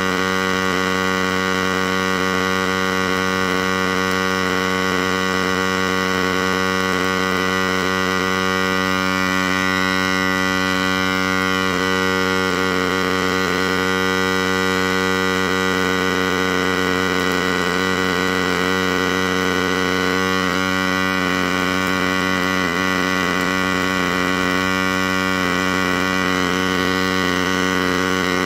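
MIG welding arc from a DIY CNC welding rig running a continuous bead: a steady buzzing hum that holds even.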